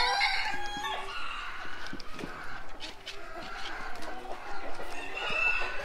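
Chickens clucking and calling, many birds overlapping at once.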